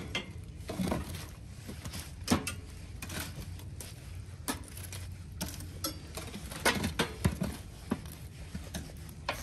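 Steel fire poker raking glowing wood coals across the ash floor of a steel grill's firebox: irregular scrapes and sharp metallic clinks as the rod knocks the coals and the box.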